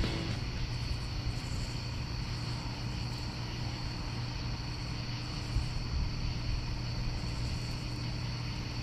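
Steady low mechanical drone, like a motor running, with a faint steady high whine above it. There is one light knock about five and a half seconds in.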